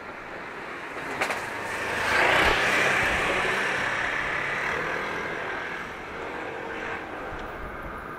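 Electric train passing, its running noise swelling to a peak about two seconds in and then slowly fading.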